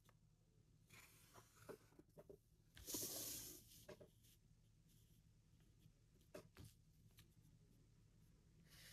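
Felt-tip marker scratching along pattern paper as a line is ruled against a plastic ruler, one short stroke about three seconds in, with a few light taps of the ruler and marker; otherwise near silence.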